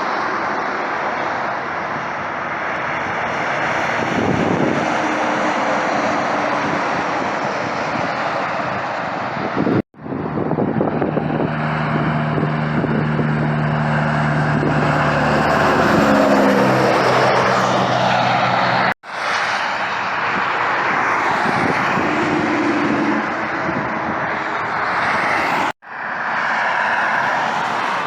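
Trucks passing on a highway, a loud rushing roar of tyres and engines in several short stretches that break off suddenly. Partway through, one passes with a steady low engine drone that drops in pitch as it goes by.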